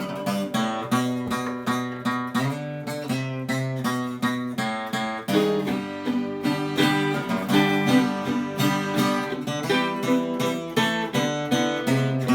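Acoustic guitar strumming chords in a steady rhythm, with the chords changing every second or so and no singing.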